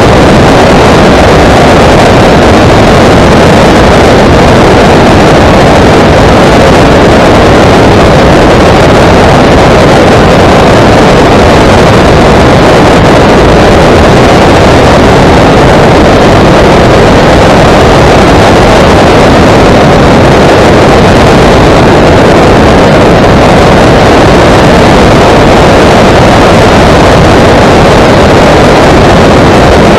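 Thatcher CX5 light aircraft on a low landing approach: loud, steady rush of engine and wind noise picked up by an action camera mounted outside under the wing, with no change in pitch.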